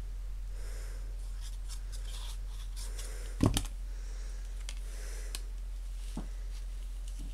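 Paper sheets rustling and sliding on a craft mat as they are handled, with one sharp knock about three and a half seconds in as a bottle of liquid glue is set down on the table. A steady low hum runs underneath.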